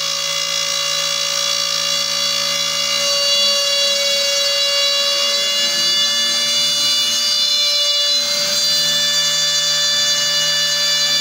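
Trim router running as the spindle of a CNC machine, a steady high-pitched whine, while its bit cuts a groove along a letter outline in a board. The lower part of the hum dips briefly about eight seconds in.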